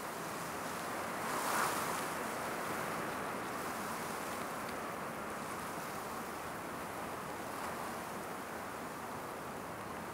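Wind blowing, a steady rushing that swells in a gust about a second and a half in.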